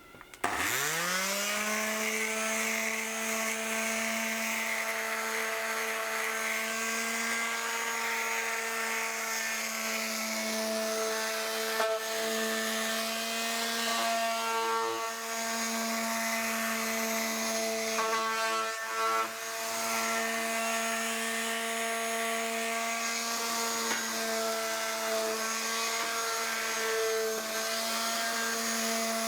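Electric sander with a 180-grit sheet switched on, spinning up within the first second and then running steadily with a high hum and sanding hiss. It is sanding down varnished wood after the first coat, before the second.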